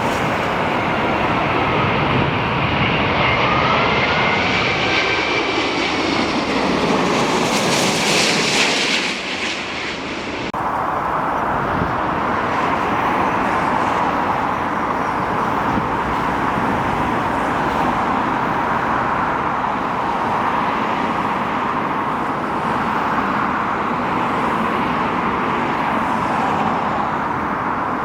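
Jet airliner engines passing close by, their whine falling in pitch as the aircraft goes past. About ten seconds in the sound cuts abruptly to a steady engine noise that runs on.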